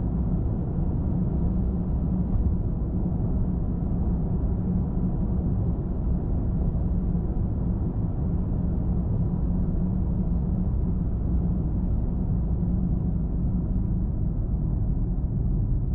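Car cruising on a highway: steady tyre and road rumble with engine noise, unchanging throughout.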